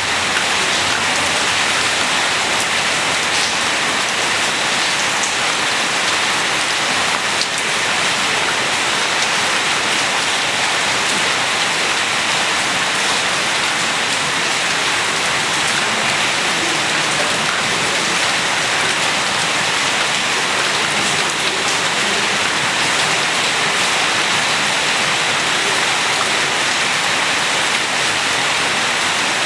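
Steady rain falling outdoors: an even hiss of rainfall with scattered individual drops landing on hard surfaces.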